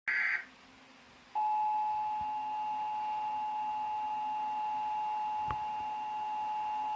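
Emergency Alert System broadcast tones: a brief warbling burst of SAME header data, then about a second later the steady two-tone attention signal starts and holds. The tone warns that an emergency alert message is about to follow.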